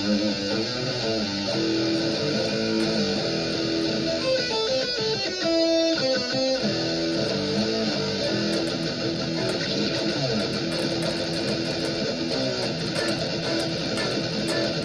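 Distorted electric guitar played through a high-gain amp model, which the player takes for a modern solid-state amp along the lines of a Randall: held notes and chords, with a short flurry of fast-picked notes about five to six seconds in.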